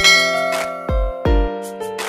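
Background music: an electronic track with kick-drum beats under held keyboard-like notes.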